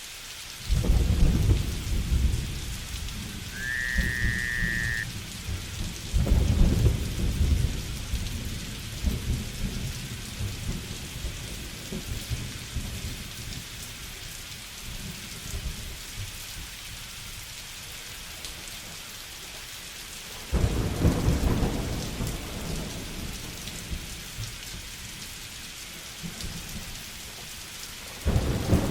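Steady rainfall with four rolls of thunder, each breaking suddenly and rumbling off over several seconds: about a second in, around six seconds, about twenty seconds in and again near the end. A brief high whistling note slides up and holds for about a second and a half, about four seconds in.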